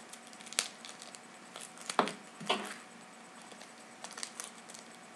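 Stickers being taken out of plastic holders by hand: scattered rustles and crinkles of plastic and paper, with a few louder ones about half a second, two seconds and two and a half seconds in.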